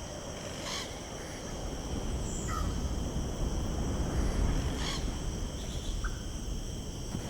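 Outdoor natural ambience: a steady high insect drone over a low wind rumble, with a few short bird chirps and two brief rustles.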